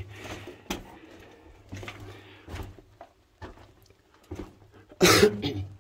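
Scattered light clicks and scuffs, then about five seconds in one loud explosive breath from the person filming, a single burst of about half a second.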